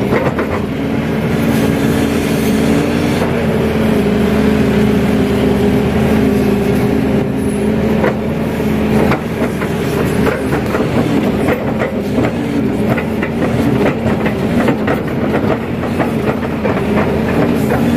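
Kato crawler excavator working from inside the cab: the diesel engine and hydraulics run under load with a steady tone that shifts in pitch as the arm moves. Scattered clanks and knocks come as the bucket scrapes and drops soil.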